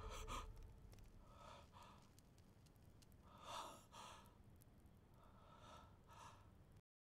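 A man's faint, heavy breathing: a few drawn breaths and sighs, the strongest about three and a half seconds in, then the sound cuts off suddenly near the end.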